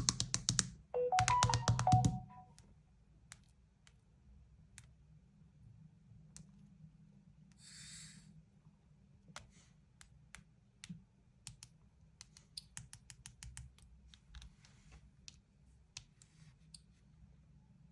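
A few pitched notes of a Samsung Galaxy ringtone or alarm tone play and cut off about two seconds in. After that come faint scattered clicks and taps, with a short hiss about eight seconds in.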